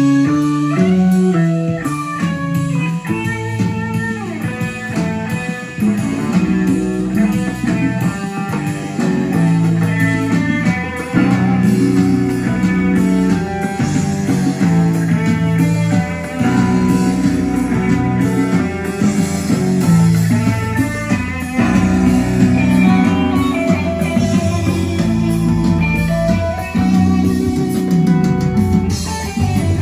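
Guitar-led rock music with a bluesy feel, played loud through a Sansui 9090 receiver and Celestion Ditton 442 loudspeakers and heard in the room.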